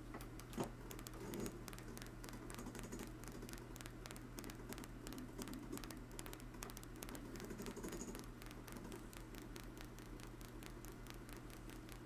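Homemade rotary switch spinning, its bearing-roller contacts clicking in a quick, even run of faint ticks, several a second, each one a pulse to the coil, over a steady low hum.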